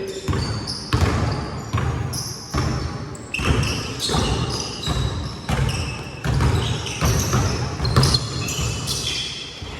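Basketball being dribbled, bouncing about every three-quarters of a second, with short high squeaks of sneakers on the court between the bounces.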